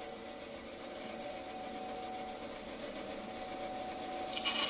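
Bandsaw running with a steady motor hum. Near the end the blade starts cutting into a thin wooden board, and a louder, higher cutting noise comes in suddenly.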